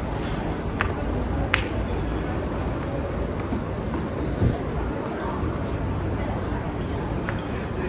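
Steady outdoor background noise with a constant high-pitched whine running through it, and two short clicks about a second and a half in.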